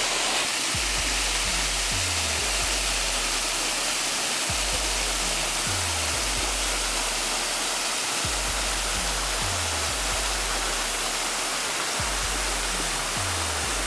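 Steady rushing water of a waterfall, over background music with a low bass phrase that repeats every few seconds.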